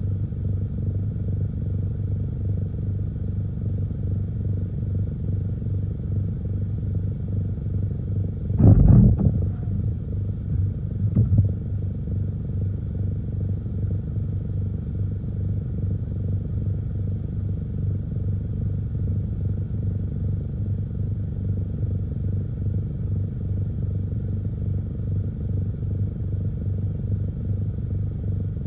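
A car idling, heard from inside the cabin as a steady low hum. Two brief dull thumps come about nine and eleven seconds in.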